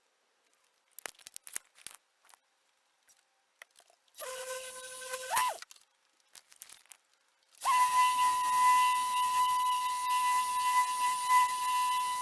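Rupes BigFoot random-orbital polisher running in bursts: a short run about four seconds in that rises in pitch just before it cuts off, then a longer, louder run from about seven and a half seconds with a steady high whine over an airy hiss. A few light clicks come before the first run.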